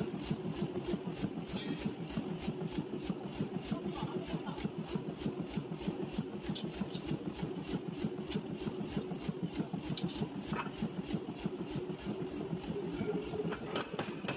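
Forging power hammer working at a rapid, even rhythm of strokes while a red-hot steel ring is forged on a mandrel bar.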